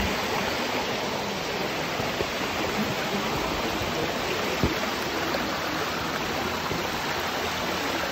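Small creek running over rocks: a steady rush of flowing water, with a light knock about four and a half seconds in.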